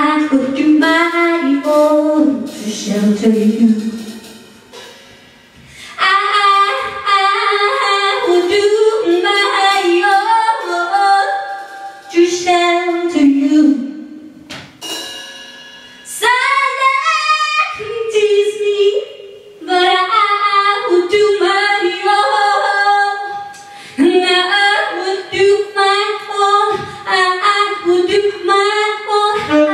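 Female jazz vocalist singing quick, winding melodic lines in phrases of a few seconds, with short breaks between them.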